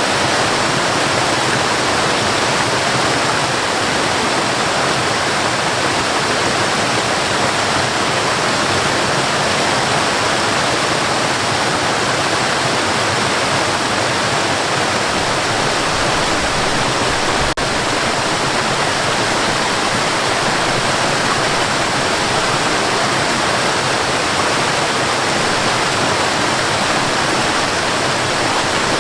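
Cascading water: a steady, even rush of water pouring and splashing.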